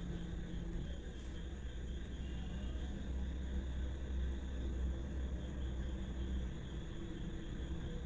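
Steady low hum with a faint even hiss: background noise with no distinct event.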